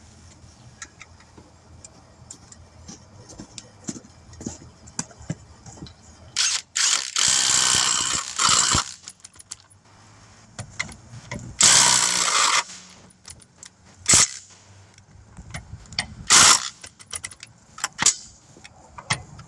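Power tool, most likely an impact wrench on lug nuts, running in two longer bursts about seven and twelve seconds in, and in a few short bursts later. Scattered clinks and knocks of metal tools and parts fall between the bursts.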